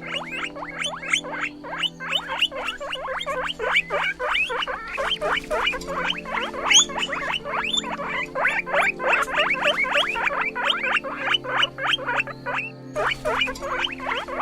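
Guinea pig squeaking in a rapid, continuous run of short high squeaks, each falling in pitch, several a second.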